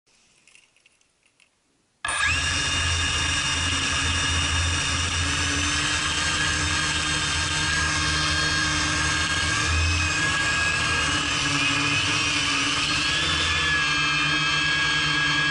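Quadcopter's electric motors and propellers spin up suddenly about two seconds in, then run with a steady whine of several high tones, heard close up from the aircraft's own camera. Near the end the pitch climbs as the throttle rises and it lifts off the ground.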